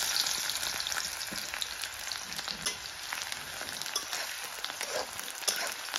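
Chopped onions frying in hot mustard oil in an aluminium kadai, freshly added: a dense, steady sizzle with scattered crackles that eases slightly over the seconds.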